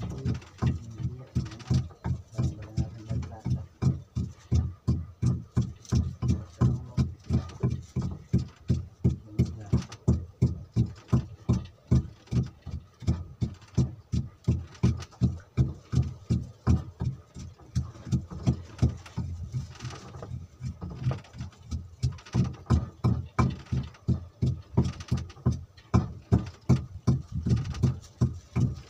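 Small wooden fishing boat's engine running with a steady, low, even thumping, about three beats a second.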